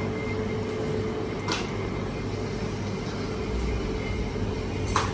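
Steady low machine hum with a faint constant whine, broken by two short sharp clicks: one about a second and a half in, one near the end.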